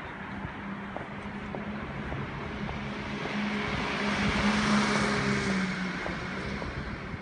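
A motor vehicle passing on a city street: a low engine hum and tyre noise swell to a peak about five seconds in, then fade, over steady street noise.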